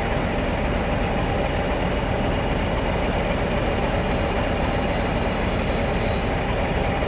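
Diesel locomotive engines running with a loud, steady drone. About four and a half seconds in, a thin high squeal joins in and fades out about two seconds later.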